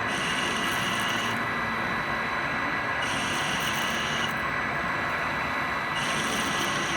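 Retrofitted CNC lathe running an automatic machining cycle, a steady hum with a high whine that switches on and off about every three seconds as it repeats its passes.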